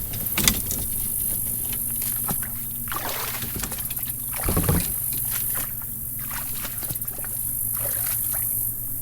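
Water sloshing and splashing around a kayak being worked through shallow, grassy water, with a few stronger splashes about half a second, three seconds and four and a half seconds in. A steady low hum runs underneath.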